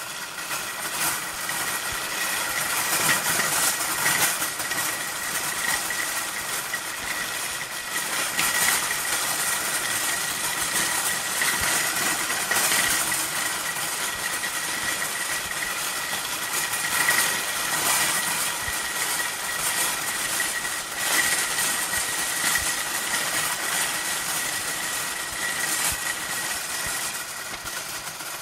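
Shopping cart being pushed along, its wire basket and wheels rattling continuously, with a steady high-pitched whine under the rattle.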